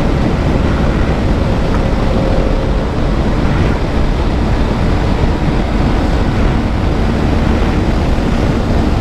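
Bajaj Pulsar 125's single-cylinder engine held flat out in fifth gear at about 115 km/h, near its top speed, with loud steady wind rush on the microphone over it.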